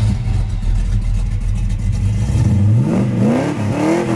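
A vehicle engine running with a steady deep rumble, then revved up and down a few times in the last second and a half.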